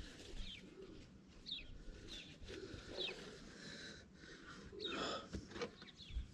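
Small birds chirping faintly: short, falling chirps about every second or so over a low outdoor hiss. A louder, breathy rustle comes about five seconds in.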